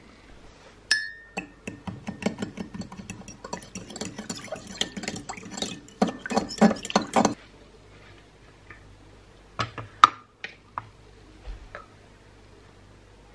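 A metal spoon stirring and scraping in a ceramic mug, clinking rapidly against its sides for about six seconds while it works a crumbled bouillon cube. A few separate knocks and clinks follow later as a measuring cup is handled.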